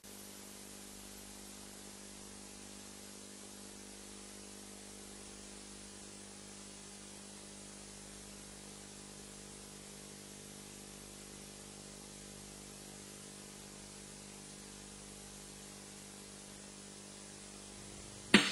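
Steady hiss and electrical hum of an old analogue videotape's soundtrack with no programme sound on it. Loud music cuts in abruptly right at the end.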